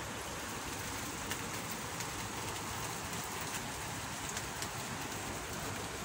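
Steady rain falling on a wet road and lawn: an even hiss with a few close drop ticks.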